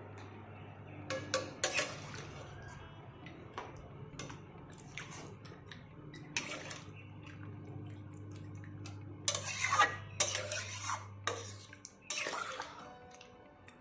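Spatula stirring thin dal in a metal kadai: scattered knocks and scrapes of the spatula against the pot, with the liquid sloshing, over a steady low hum that stops near the end.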